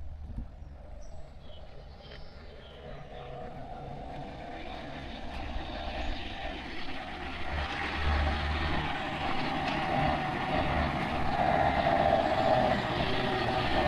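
A road vehicle, likely a truck, approaching along the road, its engine and tyre noise growing steadily louder through the second half.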